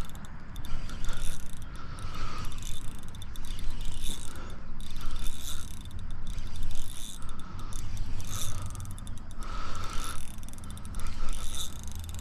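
Spinning reel being cranked on a lure retrieve: the reel's gears whir and click in pulses that swell and fade roughly once a second.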